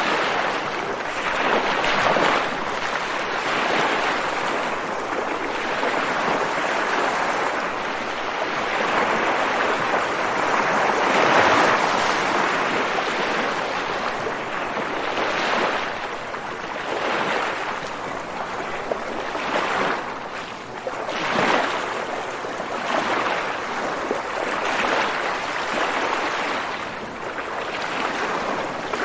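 Ocean waves washing in, a continuous rush of surf that swells and eases every few seconds, loudest near the middle.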